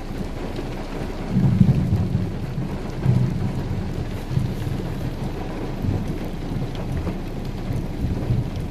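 Steady rain with thunder rumbling, heard from inside a car. The deep rumble swells about a second in and keeps rolling in uneven waves.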